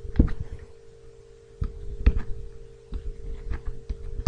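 Scattered light taps and clicks of a stylus writing on a tablet, over a steady hum.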